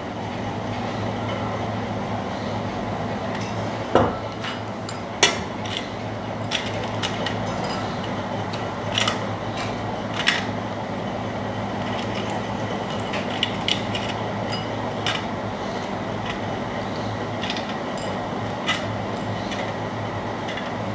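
Hard pieces of sesame brittle clicking and scraping against a steel plate and a glass bowl as they are picked up and dropped in, a dozen or so scattered clinks over a steady low hum.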